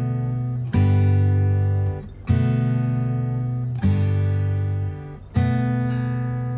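Background music of acoustic guitar chords, strummed about every one and a half seconds and each left to ring out.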